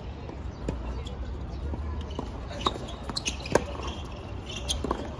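Tennis ball impacts, bounces on the court and racket strikes: several sharp knocks at uneven spacing, the loudest about three and a half seconds in, over a steady low rumble.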